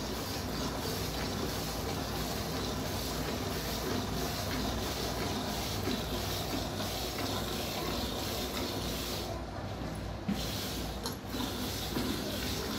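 Hand-milking a water buffalo: streams of milk squirting into a metal bucket, a steady rhythmic hiss with each pull of the teats.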